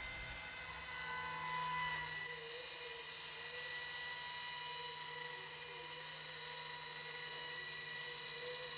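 Roof Runner motor-driven four-stand roll-forming seamer running along a standing seam roof panel, its rollers folding the side lap into a 180-degree lock seam. A steady mechanical whine, a little louder for the first two seconds, then even.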